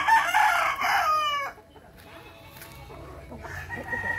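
Gamecock (rooster) crowing. The long final note falls in pitch and ends about a second and a half in. Near the end another crow begins faintly.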